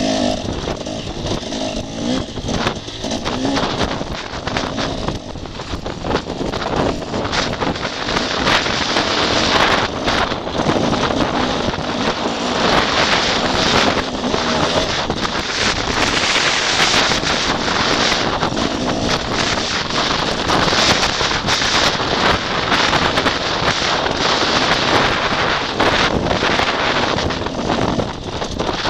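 Enduro dirt bike engine running under throttle as the bike is ridden over a rough, rutted trail, loud and mixed with heavy wind rush on the camera microphone. The engine note is clearest in the first few seconds, then is largely covered by steady wind noise.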